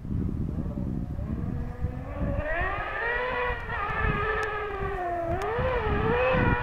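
Rally buggy's engine revving hard as the car comes down a gravel stage. The note climbs from about two seconds in, dips briefly about five seconds in, then climbs again.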